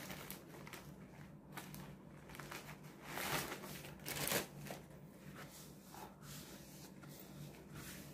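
Faint rustling and crinkling of a paper tissue being handled, with two louder rustles about three and four seconds in.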